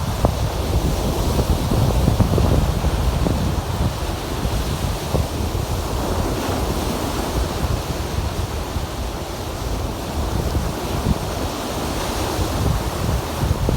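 Lake waves breaking and washing on the shore in a steady rush that swells and eases, with wind rumbling on the microphone.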